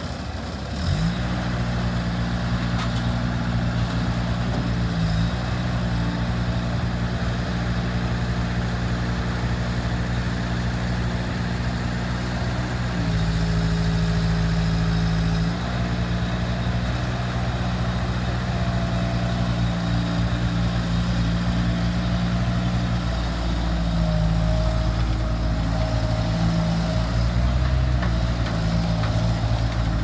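Bobcat 763 skid steer's diesel engine running steadily. The throttle comes up about a second in, and the engine then holds a steady note with small shifts in pitch.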